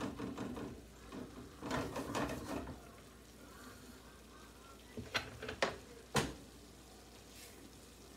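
A wooden spatula stirring and scraping in a sauté pan of salmon in thickened sauce, with three sharp knocks a little over five seconds in.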